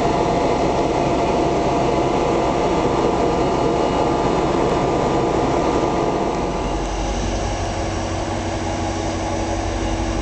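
Vossloh G 1206 diesel-hydraulic locomotive running close by, a loud steady engine rumble with a mechanical whir. About six and a half seconds in it changes to a steadier, deeper drone.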